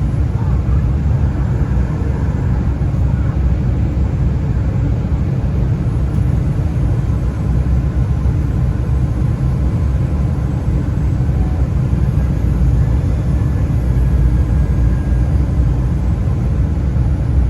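Steady cabin roar inside an Embraer E175 regional jet in descent: the hum of its wing-mounted turbofan engines and airflow past the fuselage, heavy and low, with a faint thin whine above it.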